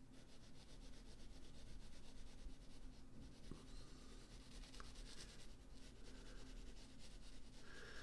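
Faint rubbing of a blue pencil shading on paper.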